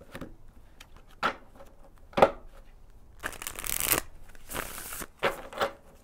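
A deck of tarot cards being shuffled by hand: a few sharp taps and snaps of the cards, the loudest about two seconds in, and two rustling riffles of the deck around the middle.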